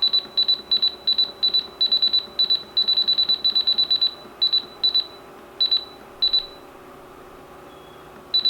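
RadioShack 12-253 weather radio's button-press beeps: a fast run of short, high-pitched beeps, about three or four a second, as its keys are pressed through the alert setup menu. The beeps then thin out to a few spaced ones, stop for about two seconds, and start again near the end.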